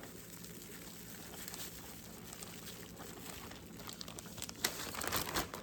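Quiet room tone, then from about four and a half seconds in, light irregular rustling and taps: whole catfish being pressed and turned in loose cornmeal coating.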